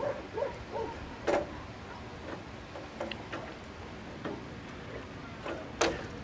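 Scattered light clicks and taps, with a sharper knock near the end, as a plywood interior panel is handled and pressed into place against a VW bus's rear cargo door.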